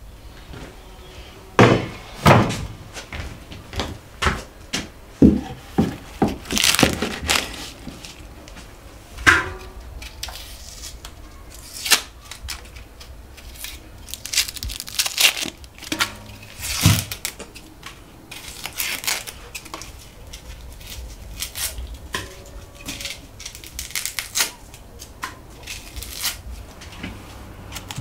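Irregular knocks, taps and dry crinkling from onions being peeled by hand over a metal bucket.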